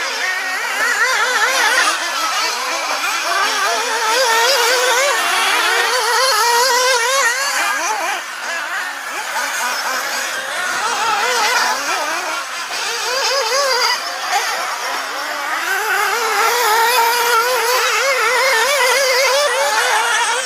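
Several radio-controlled off-road racing buggies running on a dirt track, their small high-revving engines overlapping and whining up and down in pitch as they accelerate and brake through the corners.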